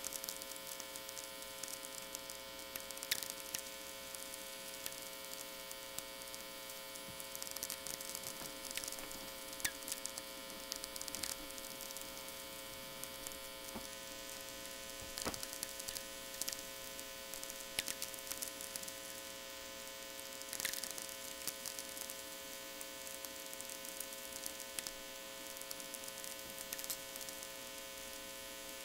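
VLF natural radio through a loop-antenna receiver: irregular crackling clicks of sferics from distant lightning, with occasional tweeks, over a steady buzz of mains hum.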